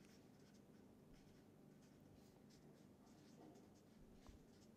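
Faint strokes of a permanent marker writing on paper.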